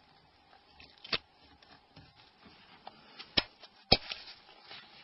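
Small handling noises of a mobile phone's plastic parts being worked on with gloved hands: a few sharp clicks, the loudest near the end, over faint rustling.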